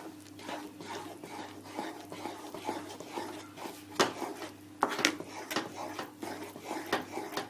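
Spatula stirring and scraping a thick egg-and-milk halwa mixture in a non-stick wok, with irregular clicks and knocks against the pan, the sharpest about four seconds in and again about a second later. A faint steady hum runs underneath.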